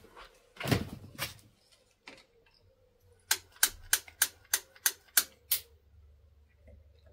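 A run of about eight sharp metallic clicks, roughly three a second, as a hand works the top of a Myford lathe's glass drip-feed headstock oiler to set the oil drip. There is a heavier knock and clatter about a second in.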